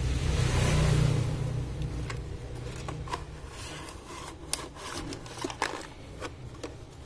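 Cardboard box and plastic packaging tray rubbing and scraping as the box is slid open and the tray pulled out, loudest about a second in, followed by several sharp plastic clicks and taps.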